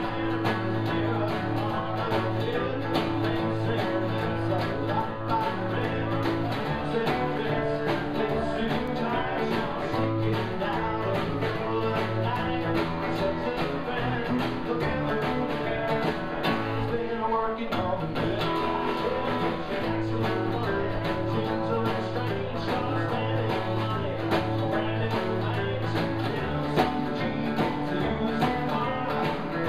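Live band playing an upbeat tune on electric guitar, upright double bass, acoustic guitar and drum kit, with a walking bass line and a steady beat.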